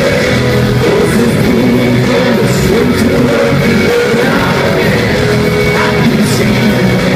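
Rock band playing loudly in a live concert: electric guitars, bass and drums with cymbal crashes, and a sung vocal line over them.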